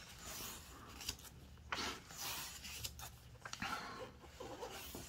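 Paper pages of a thick book being turned by hand: a few faint swishes and rustles as each page is lifted and laid over.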